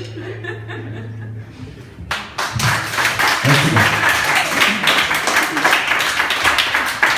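A musical piece ends on a held low note, then about two seconds in an audience breaks into applause mixed with laughter and voices.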